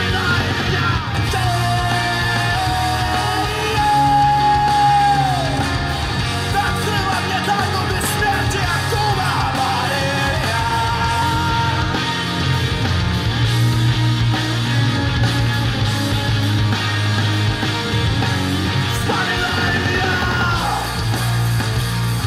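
Rock song with singing and guitar played through a pair of Korvet 75AC-001 three-way loudspeakers whose midrange and tweeter drivers have been swapped for modern branded ones.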